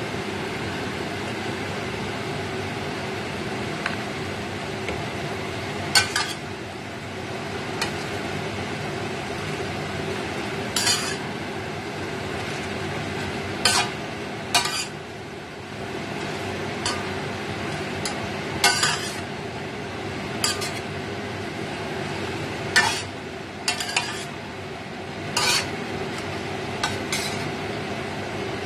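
A metal spatula stirring napa cabbage in a stainless steel pan, with about a dozen sharp clinks and scrapes of metal on metal at irregular intervals over a steady hum.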